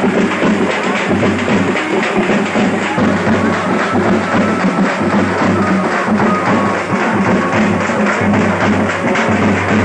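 Loud, continuous festival drumming from a street band of large strap-slung drums, heard within music.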